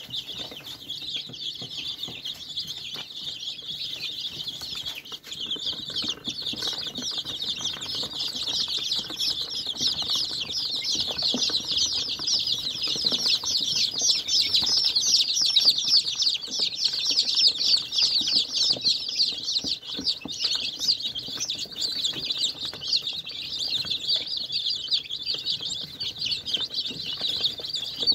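A brood of many young chicken chicks peeping all at once, a dense stream of overlapping high chirps that grows louder toward the middle.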